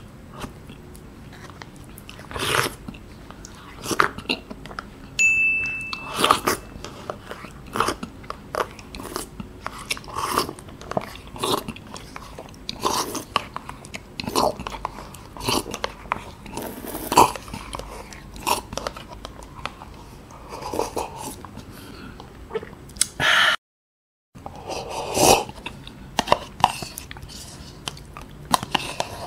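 Close-miked mouth sounds of a person eating soft KFC jelly and ice cream from a plastic spoon: irregular wet smacks, slurps and small clicks. There is a short cut to silence about four-fifths of the way through.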